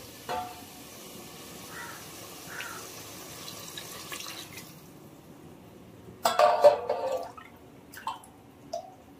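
Water scooped with a steel cup from a brass water pot and poured into a pressure cooker of gravy: splashing and dripping, loudest for about a second just past the middle.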